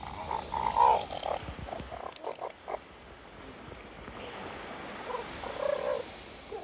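Northern elephant seal vocalizing: short pitched calls, loudest about a second in, then a string of brief grunts. Later comes a rush of sand as the seal flicks sand over its back with a fore-flipper, with a few more calls.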